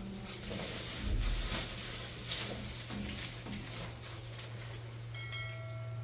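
A steady low hum with scattered clicks and knocks. About five seconds in, a bell-like musical tone begins, the start of background music.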